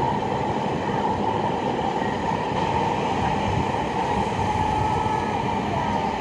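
Electric train running along the tracks: a steady rumble of wheels on rails with a constant whine held over it.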